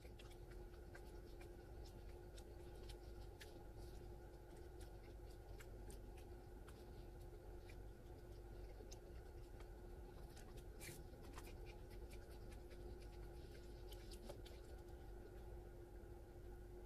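Near silence: a faint steady hum with a constant tone, and scattered light clicks and scrapes.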